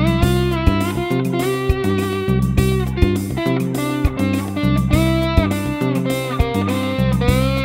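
Slide guitar instrumental: a guitar played with a slide, its notes gliding up and down between pitches, over low bass notes and a steady beat.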